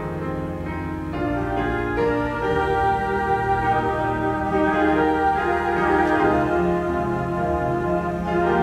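Slow instrumental music with long held chords changing every second or two.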